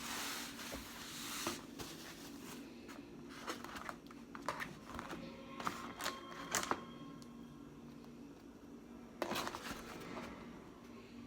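Crab shells being cracked and picked apart by hand: scattered short crackles and clicks, with faint music playing under them.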